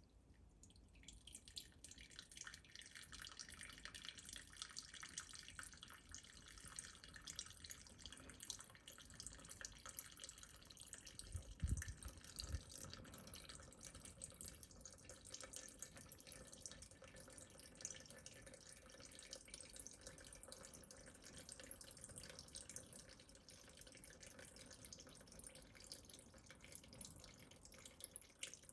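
Petrol draining from the float bowl drain of a Honda XR650R carburettor: a faint, steady trickle of fuel that starts about a second in. Two dull knocks come about halfway through.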